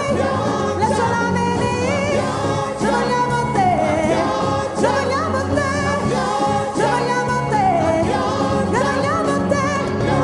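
Gospel choir and solo voices singing a song over a steady backing accompaniment.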